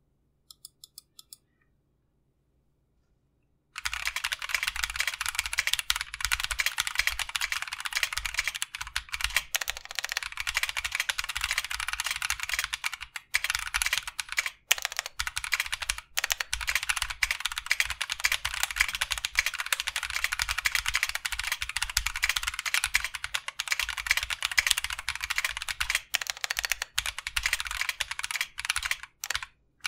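Mechanical keyboard with lubed Feker 'Holy Panda' clone tactile switches, a polycarbonate plate and an aluminium Tofu65 case being typed on quickly and continuously. Dense key clacks start about four seconds in, after a few faint clicks, and run on with only brief pauses.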